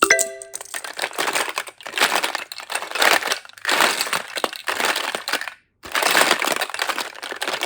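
Slime being squished and kneaded by hand: rough, crackling squishes in repeated swells about once a second, with a brief cut to silence a little past the middle.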